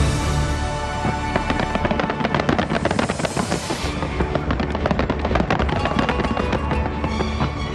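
Fireworks going off in a dense, rapid run of cracks and pops, thickest in the middle, over loud music.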